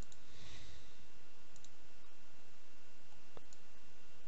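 Computer mouse clicking a few times: a single click, a quick double click about a second and a half in, and further clicks near the end, over a steady low background hiss.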